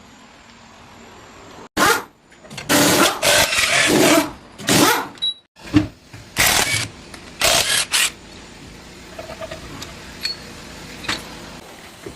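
A pneumatic shop tool, such as an air impact wrench, run in about six short bursts between roughly two and eight seconds in, followed by a few faint clicks and knocks.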